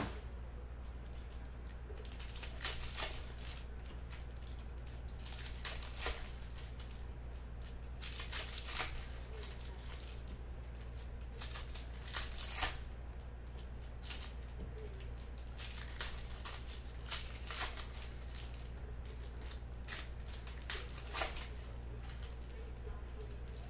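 Foil wrappers of Panini Certified football card packs crinkling and tearing as a pack is handled and ripped open, in scattered short crackles over a steady low hum.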